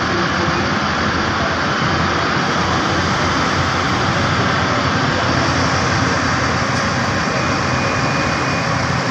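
Large diesel bus engine running steadily, a loud even drone with no change in pitch.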